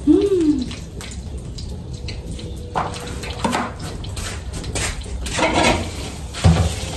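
Kitchen work at a sink: water splashing and dishes knocking, with a few sharp knocks partway through and a dull thump near the end.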